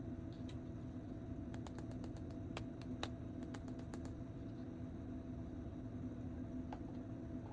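Scattered light clicks and taps of a plastic action figure being handled, most of them in the first half, over a steady low hum.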